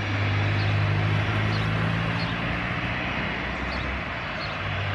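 Airbus A320 jet engines idling: a steady low hum over a broad rush.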